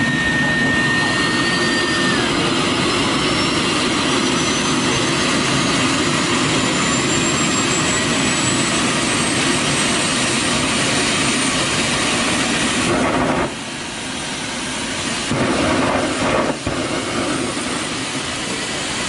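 Small homemade turbojet engine running on a test stand: a loud, steady rushing noise with a thin, high whine that climbs in pitch over about twelve seconds as the turbine spools up. About thirteen seconds in, the loudness drops suddenly.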